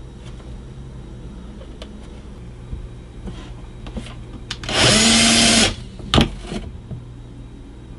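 Bosch cordless drill with a small bit drilling a pilot hole in a 3 mm acrylic panel. The motor runs in one burst of about a second, just past the middle, its whine rising to speed, holding, then dropping as it stops. Faint clicks and taps come before it, and a sharp click follows shortly after.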